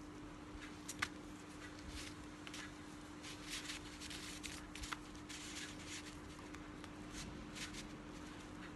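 Hands handling a small item and its packaging: scattered rustles and light clicks, with a sharp click about a second in and another just before five seconds, over a steady low hum.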